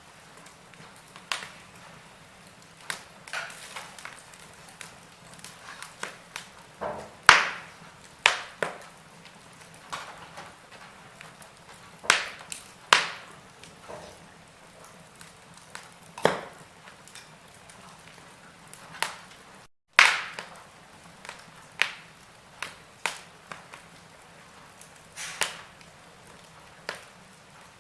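Wood fire burning in a fireplace, crackling with irregular sharp pops and snaps over a faint steady hiss; a few pops, around seven, twelve to thirteen and sixteen seconds in, are much louder than the rest.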